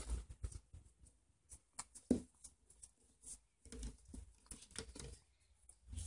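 A husky moving about on a hard floor: irregular light taps and scuffles with a few soft thumps.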